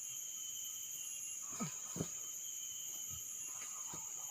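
Steady high-pitched chorus of insects such as crickets, with two short knocks about a second and a half and two seconds in.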